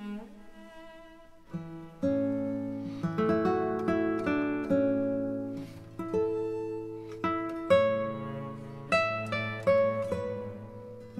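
Background music: a plucked acoustic guitar picking single notes over low bass notes, each note striking and fading away.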